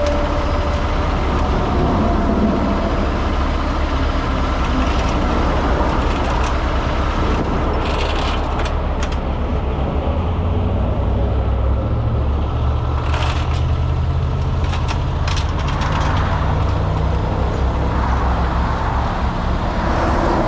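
Heavy rotator tow truck's diesel engine running steadily to drive the boom's hydraulics as the load is swung, the engine note rising a little about ten seconds in. A few short sharp noises come through around the middle.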